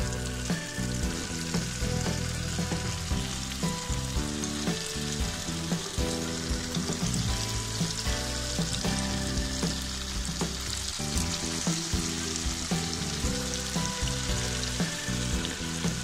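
Potato pakoda fritters deep-frying in hot oil: a steady sizzling, bubbling hiss, over background music.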